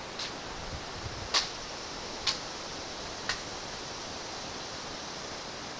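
Sharp slaps of hands catching and striking a drill rifle as it is spun, four of them about a second apart, the second the loudest. Underneath runs a steady outdoor hiss.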